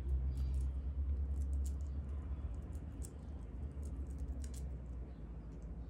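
Small scattered clicks of a bracelet and its clasp being handled while someone tries to fasten it on her wrist, over a low steady rumble.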